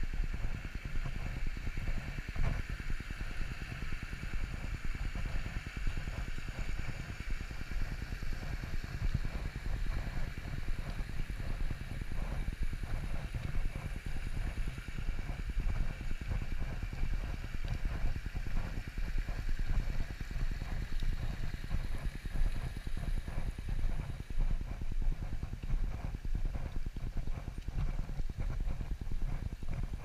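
Steady footsteps of a person walking on a soft, muddy dirt path, a regular run of dull steps, with a small stream running alongside.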